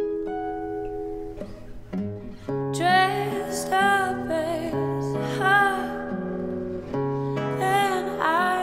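A nylon-string classical guitar being fingerpicked, joined about two and a half seconds in by a woman's voice singing long, wavering held notes over it.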